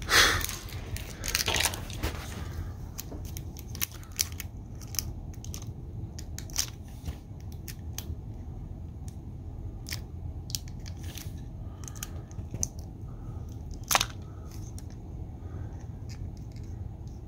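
Hard plastic toy packaging being handled by small hands: scattered light clicks and crinkles as the capsule is fiddled with and tried for an opening. There is a brief rustle at the start and one sharper click about fourteen seconds in, over a low steady hum.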